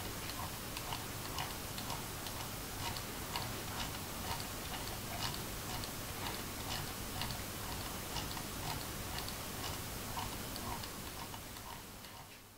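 Scroll wheel of a Roccat Kone Aimo Remastered gaming mouse being turned, its freshly replaced encoder giving an irregular run of light notch clicks, about two to four a second. It fades out near the end.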